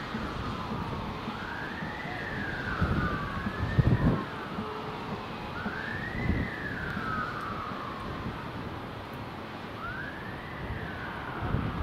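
Emergency sirens on a fire engine and rescue vehicle responding: a slow wail that climbs and then falls away, repeating every few seconds, with two sweeps overlapping at times. Under it is a low rumble of traffic on the wet road.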